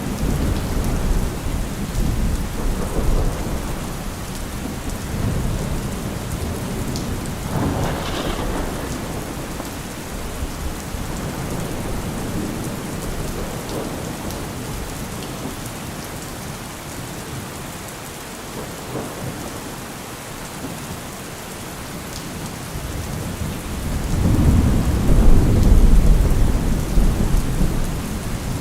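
Heavy rain falling steadily, with a deep low rumble underneath that swells to its loudest a few seconds before the end.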